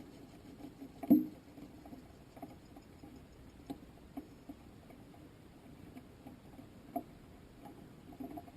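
Faint, scattered clicks and taps, with one louder knock about a second in and a smaller one near the seven-second mark.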